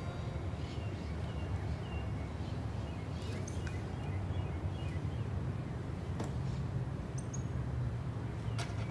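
Quiet room ambience: a steady low hum with a scatter of faint, short high chirps and a couple of light taps.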